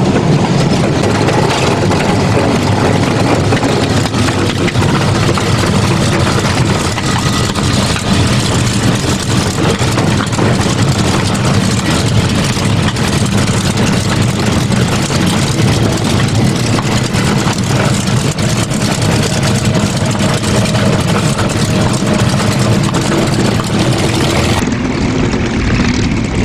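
CAC Mustang's Merlin V12 engine and propeller running steadily, heard loud from inside the cockpit as the fighter moves along the ground. Near the end the sound cuts to a Mustang taxiing, heard from outside.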